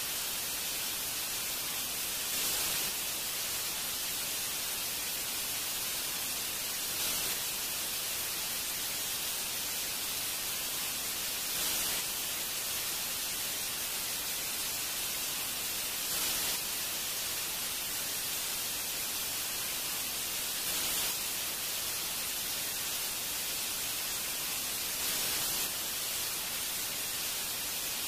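Steady static hiss, strongest in the treble, swelling faintly about every four and a half seconds.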